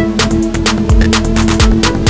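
Background music with a steady electronic beat: regular deep kick-drum thuds and sharp hi-hat ticks over a held bass note.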